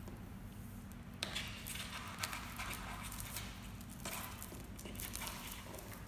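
Kittens' paws scampering and scrabbling on a crinkly foil-covered mat: irregular rustling and light patter that starts about a second in, over a steady low hum.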